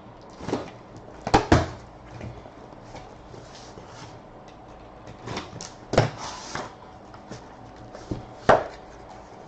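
Knocks, clicks and scrapes of a cardboard trading-card hobby box being handled and cut open, its wrapper sliced with a knife. The sharpest knocks come about a second and a half in and near the end.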